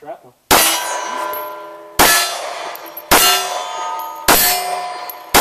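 Five 9mm handgun shots fired about a second and a quarter apart, each followed by the ring of a struck steel target, several tones at once that fade away before the next shot: the sound of steel-plate hits.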